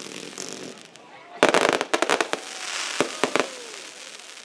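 Aerial fireworks going off: a loud burst about a second and a half in, followed by a rapid string of sharp cracks and crackling stars, with a few more bangs around three seconds.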